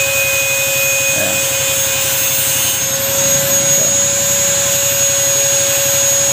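A machine running steadily: a constant droning whine held at one pitch, with a hiss over it.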